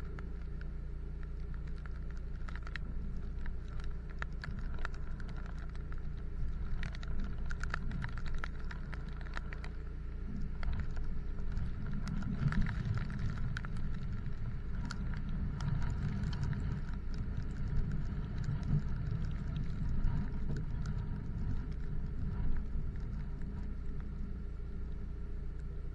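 Rain pattering on a parked car, heard from inside, as scattered light clicks over a steady low hum from the car. The patter grows busier through the middle, with a few louder knocks.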